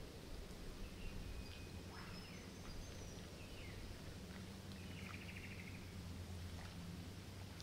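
Low wind rumble on the microphone, with faint chirps and short whistles from small birds in the bush and a brief buzzy trill about five seconds in.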